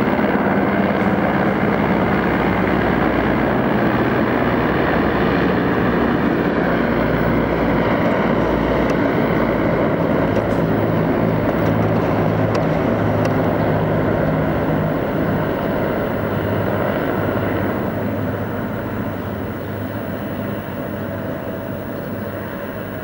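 Two military helicopters flying low overhead, their rotor and engine noise loud and steady, then fading over the last several seconds as they move away.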